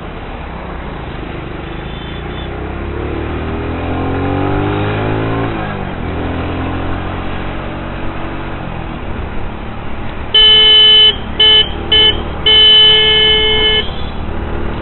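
Motorcycle riding in road traffic, its engine note rising as it accelerates and then dropping about six seconds in. Near the end a loud vehicle horn honks four times: a longer blast, two short toots, then the longest blast.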